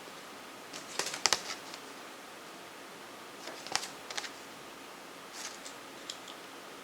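Light clicks and taps of CD box-set packaging and discs being handled, in three short clusters: about a second in, just past the middle, and near the end.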